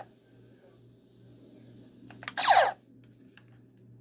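Toy blaster pistol's electronic firing sound from its built-in speaker: one short descending laser 'pew' about two and a half seconds in, over a low steady hum.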